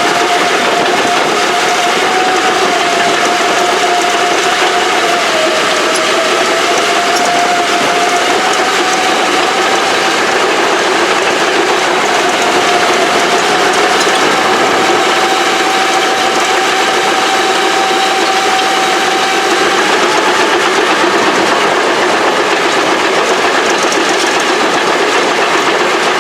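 Old Caterpillar heavy equipment running steadily with a mechanical clatter and a whine that dips slightly in pitch about five seconds in and rises again around twenty seconds.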